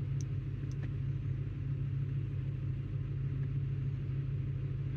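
Ford 4.6-litre two-valve V8 idling steadily, smooth with no misfire at the moment, after the cylinder 6 ignition coil was swapped into cylinder 1. Two faint clicks in the first second.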